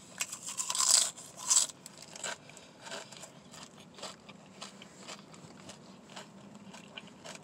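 Close-up mouth crunching as a crunchy snack is bitten and chewed: a few loud crunches in the first second or two, then softer, irregular chewing clicks.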